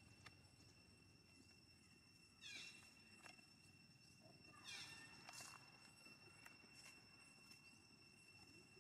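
A baby monkey gives two short, high squeals that fall in pitch, about two seconds apart, the second a little longer, over a faint steady high tone.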